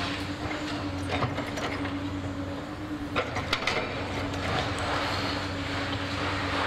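Demolition excavator running with a steady engine and hydraulic hum, with scattered knocks and cracks of concrete and metal debris as it breaks into the building.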